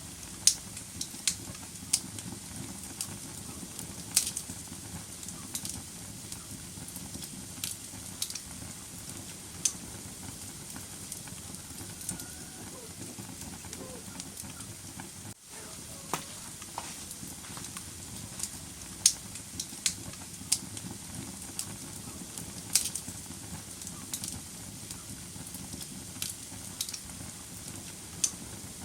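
Wood fire burning in a fireplace: a steady low rush of flames with irregular sharp crackles and pops from the burning logs.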